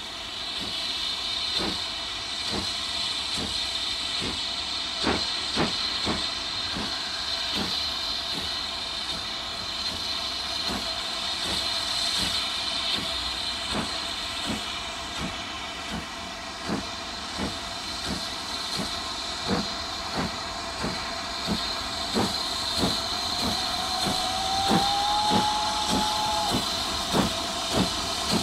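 BR Standard Class 7 'Britannia' steam locomotive 70013 Oliver Cromwell starting a goods train: a steady hiss of steam under sharp exhaust beats that quicken as it gathers speed. Near the end it gives one whistle blast that slides up slightly and is then held for a few seconds.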